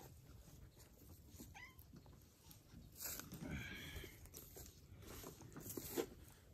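Domestic cat meowing faintly: a short chirp about one and a half seconds in, then a longer meow at about three seconds. A sharp tap sounds just before the end.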